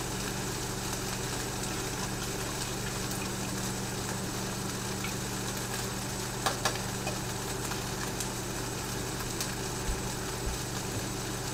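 Steady low hum of a running microwave oven, with a couple of light clicks about six and a half seconds in.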